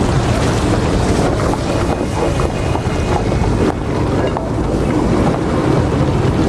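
Steady, loud rushing noise with no clear events, such as wind on the microphone or a gas burner's roar.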